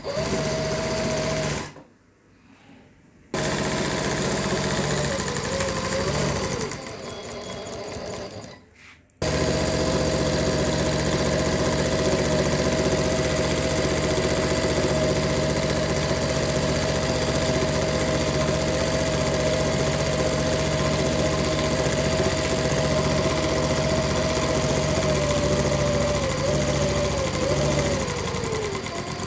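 Mannan King chain stitch embroidery machine running as it stitches. It stops and starts twice in the first nine seconds, then runs steadily for about twenty seconds and slows down near the end.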